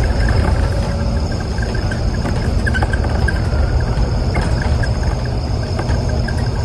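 Bus running along the road, heard from inside the cabin: a steady low engine and road rumble with scattered light rattling ticks and a faint steady high whine.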